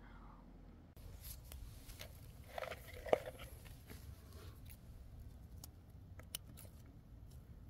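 Faint, scattered sharp clicks of scissors snipping flower stems, over a steady low rumble.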